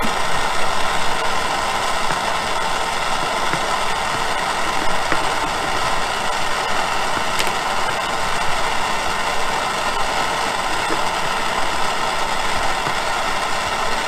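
A machine running steadily: an even whirring hum with a faint rattle, unchanging throughout.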